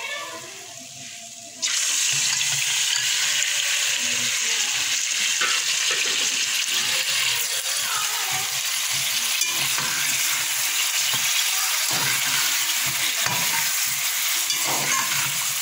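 Raw chicken pieces sizzling in hot oil with golden-browned onions in a metal pot, the first frying (bhunai) of the chicken for pulao. The loud, steady sizzle starts abruptly about a second and a half in, with the odd faint scrape of the spatula as it is stirred.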